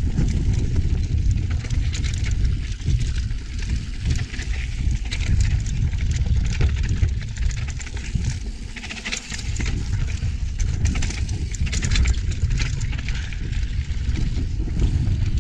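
Wind rumbling on the camera microphone as a hardtail mountain bike rolls fast over a dirt singletrack, with tyres crunching on the dirt and the bike rattling. The rumble eases briefly about eight seconds in.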